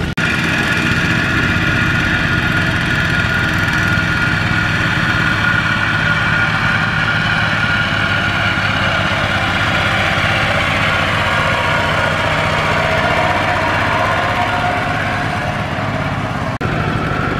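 Single-cylinder diesel engine of a Kubota ZT120 two-wheel power tiller running steadily while pulling a trailer loaded with rice sacks, with a brief break about a second before the end.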